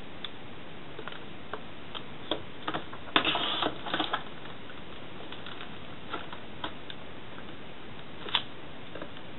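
Clear plastic ruler and pen being handled on paper over a table: scattered light clicks and taps, a short rustling scrape about three seconds in, and one sharper click near the end, over a steady hiss.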